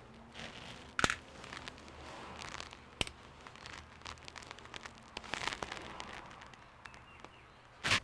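Handling noise from tools and parts on a silicone repair mat: soft rustling of gloved hands with scattered sharp clicks and knocks, the loudest about a second in and at the very end.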